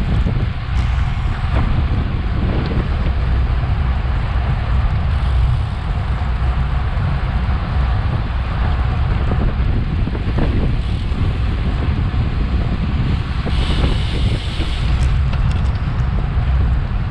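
Steady, loud wind rumble buffeting a bike-mounted action camera's microphone while riding at racing speed. A brief brighter hiss rises over it about three-quarters of the way through.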